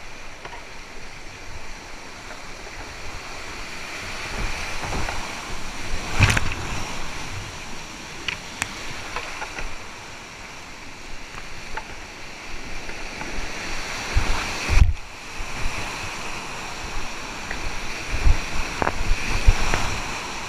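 Whitewater rapids rushing steadily and loudly around a kayak in high spring flow, heard close up with water splashing on the camera. Occasional low thumps break through, loudest about six seconds in and again in the last few seconds.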